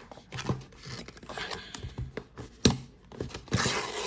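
Cardboard webcam box and its taped packaging being worked open by hand: scattered scrapes and clicks, then a longer tearing sound near the end.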